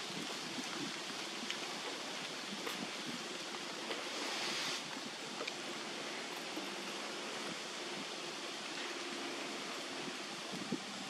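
Steady outdoor background hiss with no distinct event, briefly brighter and louder in the high range about four seconds in, with a few faint ticks.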